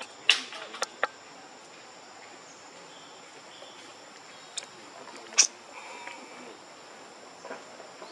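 Steady high-pitched insect drone with a few sharp clicks and short squeaks over it. The loudest come just after the start and about five and a half seconds in.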